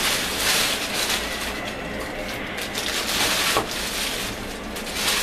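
Thin plastic bag rustling and crinkling in irregular surges as it is handled and pulled back off a pan of proofed bread dough.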